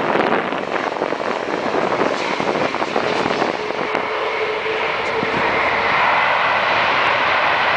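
The jet engines of a landing Airbus A330-343, Rolls-Royce Trent 700s, heard as a loud, continuous rushing roar that grows louder about six seconds in.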